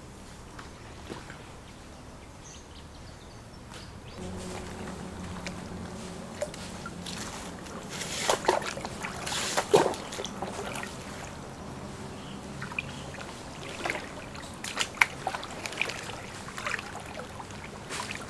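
Liquid trickling and pouring, with a steady low hum that starts about four seconds in. A few sharp knocks come around the middle and a scatter of smaller clicks near the end.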